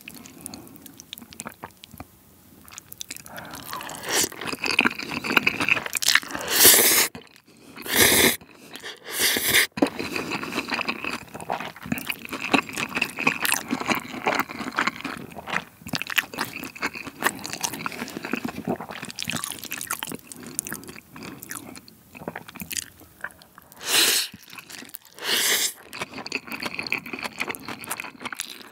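Close-miked chewing of Jjapagetti black-bean-sauce noodles and fried egg. It is broken by short loud slurps of noodles: three between about six and ten seconds in, and two more near the end.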